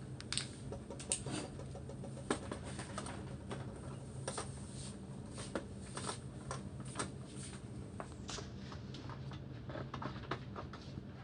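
Screws being taken out of a monitor's back casing with a screwdriver: scattered light clicks and taps of tool, metal and plastic at irregular intervals, over a steady low hum.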